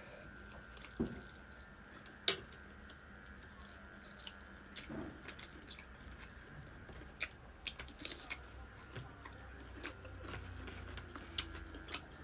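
Close-up eating sounds: quiet chewing with scattered sharp mouth clicks and small crunches, the two loudest clicks about one and two seconds in.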